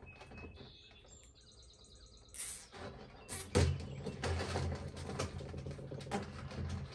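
Birds chirping faintly. From about two and a half seconds in, louder rustling and crinkling of a burlap liner as hands press it down into a wire hanging basket, with irregular clicks and a low rumble of handling.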